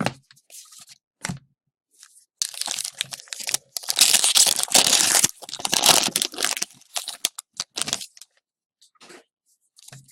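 Trading-card pack wrapper being torn open and crinkled: a few short clicks, then loud tearing and crinkling from about two and a half seconds in to about eight seconds, then light handling clicks.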